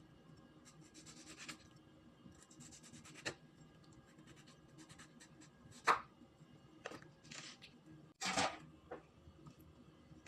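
Kitchen knife slicing a tomato on a wooden cutting board: faint scraping of the blade through the flesh, with a few sharp knocks of the knife on the board, the loudest about eight seconds in.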